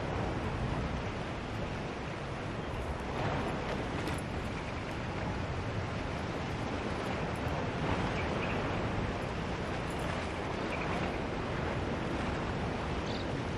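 Steady rushing wash of ocean surf mixed with wind. A few faint knocks of gear being handled come about three to four seconds in.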